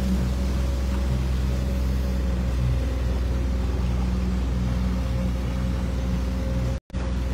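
Outboard motor running steadily as the boat moves under way, with water rushing in the wake. The sound cuts out for a split second near the end.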